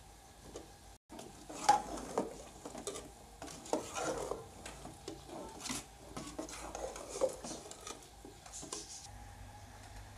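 A metal ladle stirs raw potato chunks into chopped spinach in a metal cooking pot, scraping and knocking against the pot in irregular strokes. There is a sharp clank about a second and a half in, and the stirring stops about two seconds before the end.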